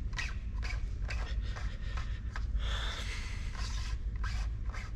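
Fingers rubbing and pressing over a painted engine cam cover and its newly stuck-on badge: a run of short, irregular scuffs and taps over a low steady rumble.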